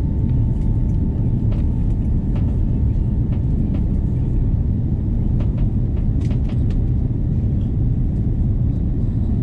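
Steady low roar of jet cabin noise inside an Airbus A330 in flight, with a few faint scattered clicks and a faint steady tone that fades out about a second and a half in.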